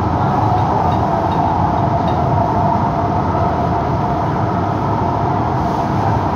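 São Paulo Metro Line 5-Lilac train running at steady speed on an elevated track, heard from inside the car: an even rolling rumble with a constant hum over it.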